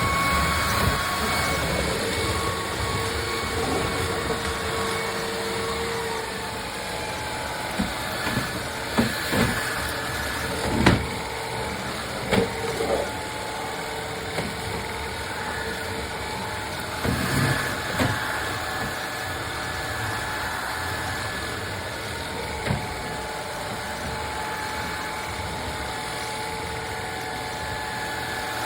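A motor running steadily with a hum, with several short knocks and bumps partway through.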